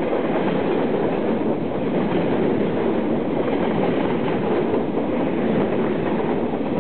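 Container wagons of a freight train rolling past: a steady rumble of steel wheels on the rails.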